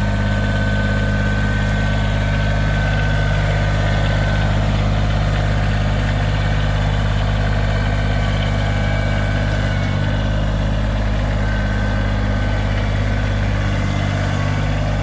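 Backhoe's diesel engine running steadily at an even, unchanging speed.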